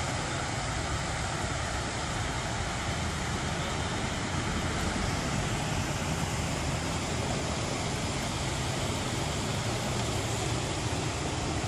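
Muddy flash-flood water rushing in a steady, even noise with a low rumble underneath.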